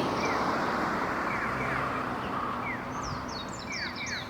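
Electronic bird-call tone of a Japanese pedestrian crossing signal, sounding while the walk light is on: short falling chirps, mostly in pairs, repeating about once a second over a steady hiss of street noise.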